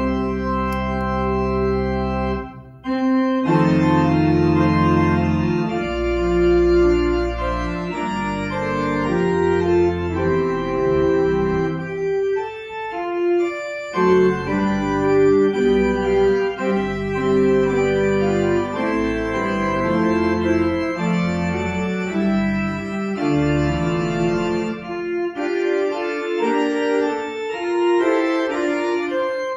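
Church organ playing sustained chords over a pedal bass line. It pauses briefly about two and a half seconds in, and the bass drops out for a stretch near the middle and again near the end.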